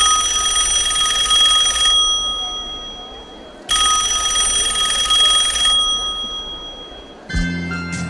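Telephone ringing twice, each ring about two seconds long, opening the routine's recorded music. Music starts near the end.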